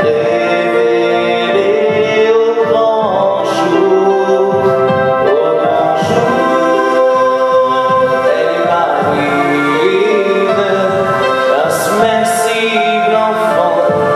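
A man singing a song with musical accompaniment, the sung melody held in long notes over steady instrumental chords.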